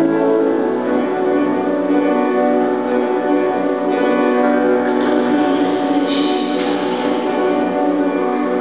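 Grand piano playing a slow instrumental passage of long-held chords.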